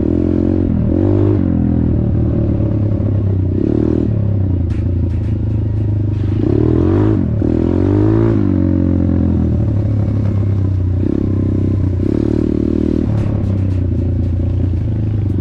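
Off-road motorcycle engine running and being revved, its pitch rising and falling several times.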